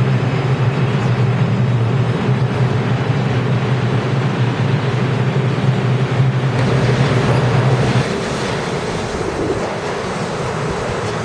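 New York City subway train running through a station platform with a steady, loud rumble and a low hum. About eight seconds in it cuts to another subway train rolling past at a slightly lower level.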